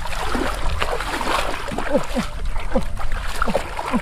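Muddy water splashing and sloshing as hands dig and grope in a shallow, half-drained paddy channel while hand-fishing for catfish. Short falling chirps, each under half a second, recur every half second or so on top of the water sound.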